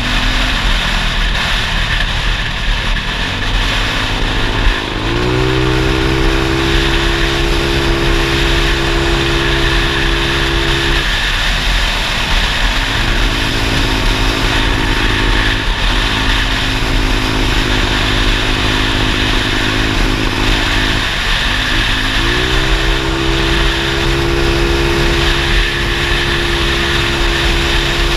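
Small motorcycle engine running at road speed. Its note climbs and levels off, then eases and picks up again several times, under heavy wind rush over the microphone.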